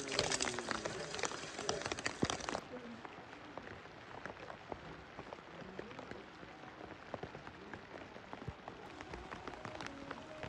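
Water splashing as it is poured out of a steel bowl at an outdoor tap, then, from about two and a half seconds in, light rain pattering steadily with scattered drop ticks.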